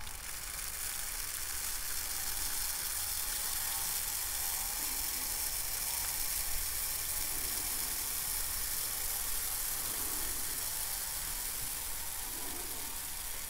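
Silica gel desiccant beads poured in a steady stream into a clear tube, a continuous rattling hiss of small beads that runs without a break.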